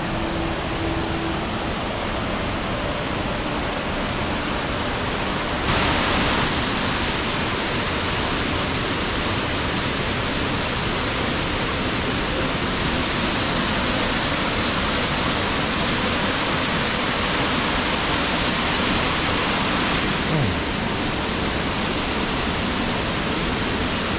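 Waterfall's water pouring down steadily, a dense rushing hiss that grows louder and brighter about six seconds in and eases slightly near the end.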